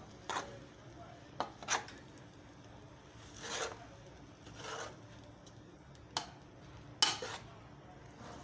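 A metal spoon stirring fried rice in a large metal pot, clinking and scraping against the pot's side and bottom in irregular strokes, the sharpest about seven seconds in.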